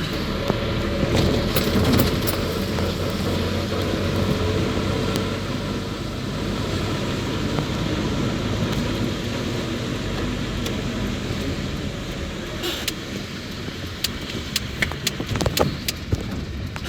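Car engine running and tyres hissing through water on a rain-flooded road, heard from inside the car. Scattered sharp clicks come in over the last few seconds.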